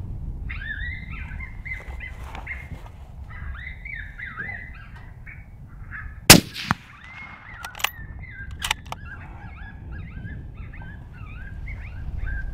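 Electronic predator caller playing rabbit distress cries, a run of wavering squeals repeating throughout. About six seconds in, a single suppressed rifle shot cracks out, the loudest sound, fired at the coyote that came in to the call.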